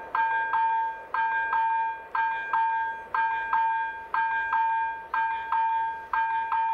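Railway level crossing's electronic warning bell ringing, a ringing two-tone ding repeated evenly about twice a second. It sounds while the red lights flash: the crossing is closed for an approaching train.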